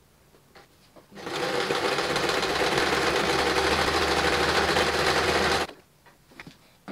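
Janome 1 Step 2319S sewing machine stitching a seam: about a second in it starts and runs steadily for around four and a half seconds, then stops abruptly. A few faint clicks of handling the fabric and machine before and after.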